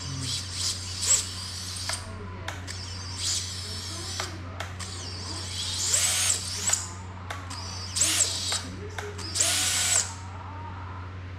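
Small electric screwdriver whirring in several short runs, each spinning up, holding briefly and winding down, as screws are driven into the drone's frame.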